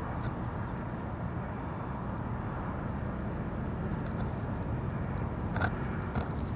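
Steady low outdoor rumble, with a few faint crackles about two-thirds of the way through.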